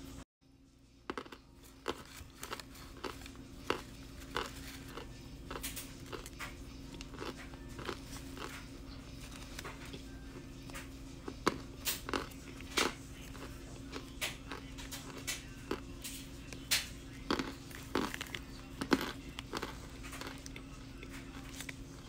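Chewing and biting compressed cornstarch from a Chestnut Hill cornstarch brick: an irregular run of crisp crunches, with the sharpest ones in the second half.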